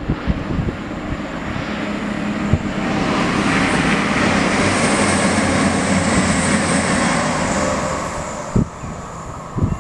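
A train passing: a rushing noise that builds over the first few seconds, holds, and fades near the end, with a high hiss on top at its loudest. Two short knocks near the end.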